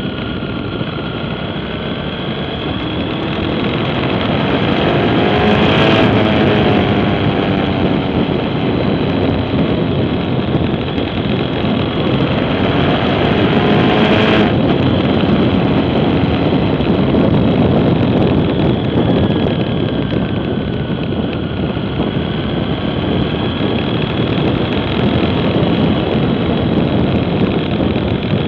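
Motorcycle engine running at road speed under heavy wind rush on the microphone. The engine note sweeps up twice, about six and fourteen seconds in, as the bike accelerates through the gears.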